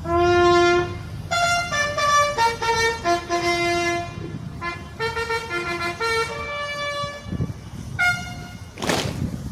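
Military bugle call: a string of held and short notes on a few pitches, opening on a long low note and then moving up and down among higher ones, with a brief noisy burst near the end.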